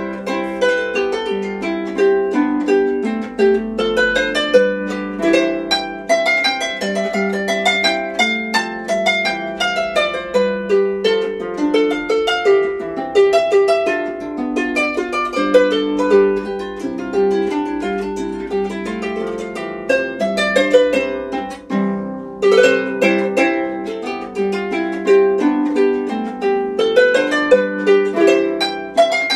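Pedal harp built in Paris by Pierre Challiot around 1820, played in a continuous stream of plucked notes, chords and runs. There is a short lull about two-thirds of the way through before the playing picks up again.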